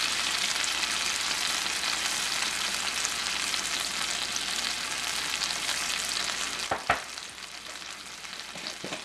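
Sliced onions in tamarind water sizzling steadily in a non-stick wok. A single sharp knock comes about seven seconds in, and after it the sizzle is quieter.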